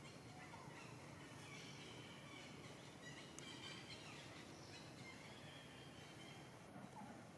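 Near silence: faint outdoor ambience with a few faint bird chirps in the first half.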